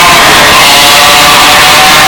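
Mazda 767B's four-rotor rotary engine running at high revs with a steady pitched note, the audio boosted into heavy, clipped distortion.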